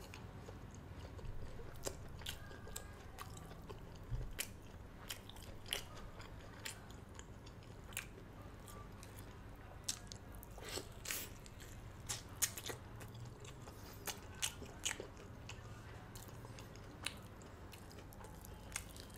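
A person biting and chewing crispy-skinned fried chicken, close to the microphone, with irregular short crunches and mouth clicks.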